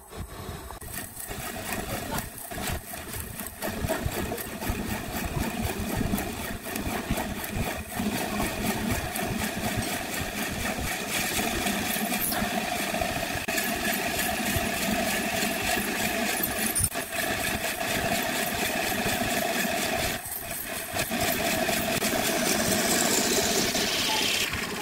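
Wood lathe running steadily, with a drill bit in a tailstock chuck boring into the end of a spinning segmented wood blank.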